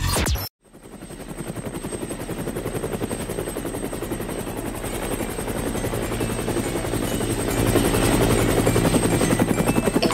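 A fast, even mechanical pulsing that fades in just after a brief dropout and grows louder, with a thin high whine above it.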